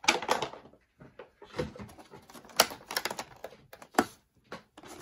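Clear plastic blister tray of a trading-card collection box being handled and pried open by hand: irregular crackles and sharp clicks, loudest about two and a half and four seconds in.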